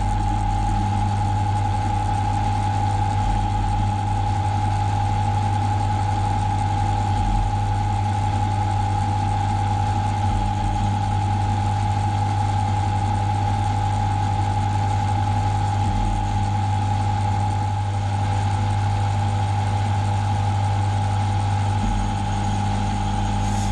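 AL960B mill/drill running steadily: a constant motor hum with a high, even whine.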